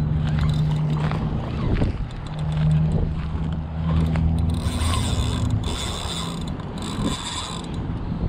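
Spinning reel being cranked against a hooked snook, its gears whirring in two spells of steady winding.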